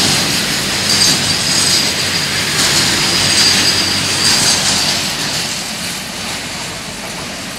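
Freight train of enclosed car-carrier wagons passing at speed: a loud, steady rush and rattle of wheels on rail, with a high ringing tone that comes and goes about every second. It fades over the last couple of seconds as the brake van at the tail goes by.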